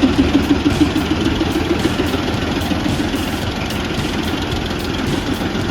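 The small pressure-washer engine of a homemade stump grinder running steadily.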